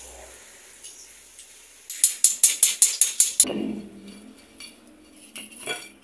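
A wire-mesh frying strainer rapped about eight times in quick succession against the rim of a metal wok, shaking hot oil off freshly fried cassava. A softer clatter and a few light clinks follow as the cassava is tipped onto a china plate.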